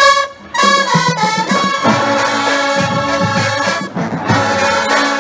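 Marching band brass — trumpets, trombones and sousaphones — hits a loud chord, breaks off for a moment, then plays on in full, sustained chords.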